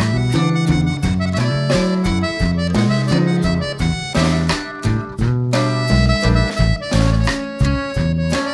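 Background instrumental music with a steady beat, bass and melody.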